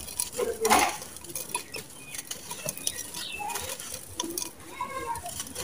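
Dry mud chunks crumbled by hand, the grit and dust pouring and pattering into a clay pot. It is loudest about half a second in, then settles into a softer trickle with small clicks of falling bits.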